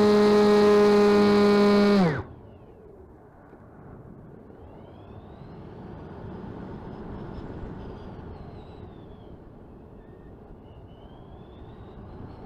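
The plane's Turnigy D3536/5 1450KV brushless outrunner motor and propeller, heard from the onboard camera, run at a steady high pitch and then cut off abruptly about two seconds in, with a quick drop in pitch as the throttle is closed. Then comes a quieter steady rush of air past the gliding airframe, with a faint whine that rises and falls twice.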